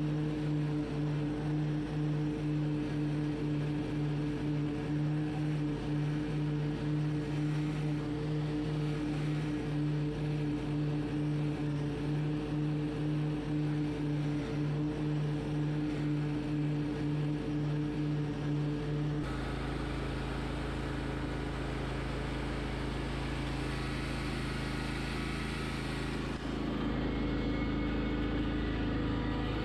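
Hustler Surfer Pro stand-on mower's engine running steadily while mowing grass, with a fast pulsing beat. About two-thirds in, the sound changes abruptly to a lower, smoother drone.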